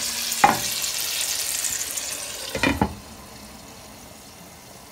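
Water and oil sizzling and spitting hard in a hot frying pan of pan-fried pork buns (sheng jian bao) just after cold water has been added. There is a ringing clink about half a second in, and another clink near the three-second mark as the glass pan lid goes on, after which the sizzle is muffled and quieter.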